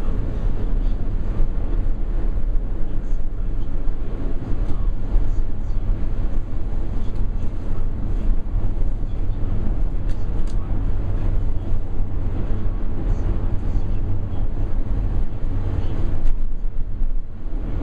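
Steady low rumble and hum inside a cable car gondola cabin as it runs down along the cable.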